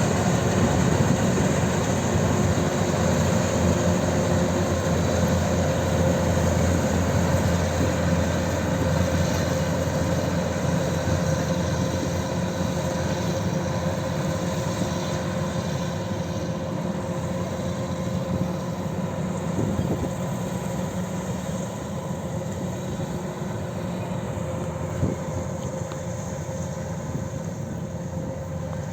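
Kubota DC-93 combine harvester's diesel engine and threshing machinery running steadily with a constant whine, slowly growing fainter.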